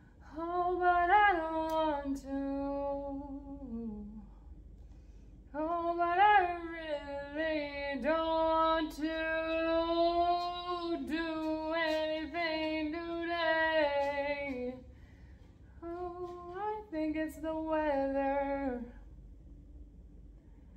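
A woman singing solo, without accompaniment, in three phrases with long held notes and short breaks between them.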